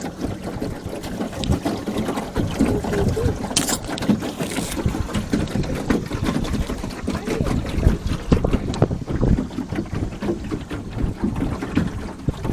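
Small fishing boat under way on a pond: a choppy, irregular rumble of water and movement noise with no steady engine tone, and a short hiss about three and a half seconds in.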